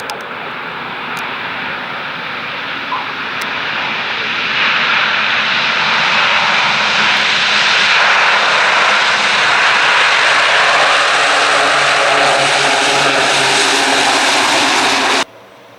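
Four Allison T56 turboprop engines of a C-130T Hercules on a windy landing, a dense roar that grows louder over the first few seconds, holds loud, then cuts off suddenly near the end.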